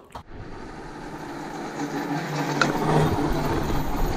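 Ski field rope tow machinery running: a steady mechanical hum that grows louder, with a couple of sharp knocks near the middle.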